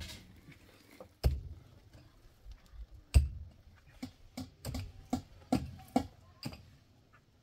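A series of irregular knocks: two loud knocks about two seconds apart, then a quicker run of lighter taps that stops near the end.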